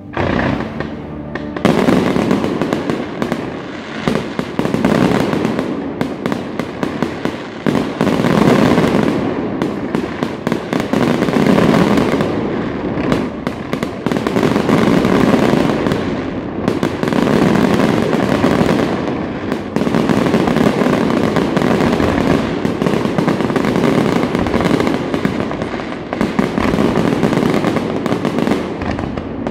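Fireworks display: aerial shells bursting in rapid, overlapping bangs and crackles that start abruptly and swell in waves every few seconds.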